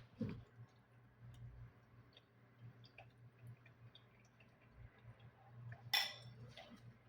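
Faint eating sounds: scattered light clicks and clinks, as of utensils on a dish, with one sharper sound about six seconds in, over a low steady hum.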